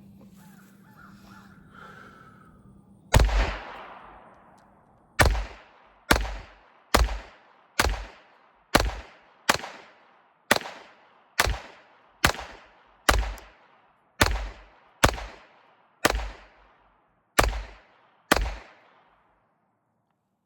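Taurus TX22 .22 LR pistol firing a full sixteen-round magazine of Winchester white box rounds: sharp shots about a second apart, each with a short echoing tail. Firing starts about three seconds in and stops shortly before the end.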